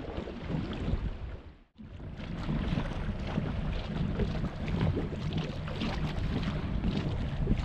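Wind buffeting the microphone over water lapping against a small wooden boat's hull, a rough steady rumble with scattered small knocks and splashes. The sound cuts out for a moment just under two seconds in, then resumes.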